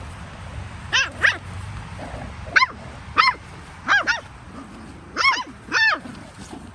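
Cavalier–poodle cross puppy barking in play: about eight short, high-pitched yappy barks, several in quick pairs.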